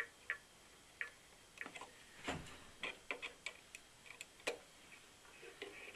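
Faint, irregular light clicks and scrapes of a small screwdriver tip working the exposed contacts of a circuit-board relay, bending them slightly to cure a relay fault.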